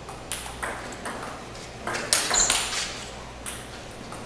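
Table tennis rally: a ping-pong ball clicking back and forth off paddles and the table, with a quick cluster of louder clicks about two seconds in.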